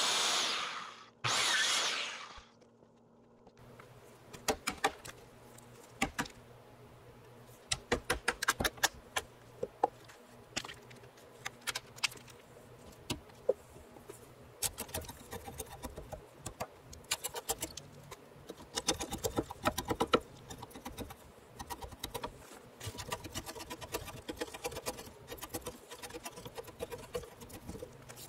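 A circular saw finishes a cut and stops about a second in, then runs again briefly and winds down. From about four seconds on, a framing chisel is worked by hand into the end of a log: uneven bursts of quick, sharp clicks and scraping as wood is pared away.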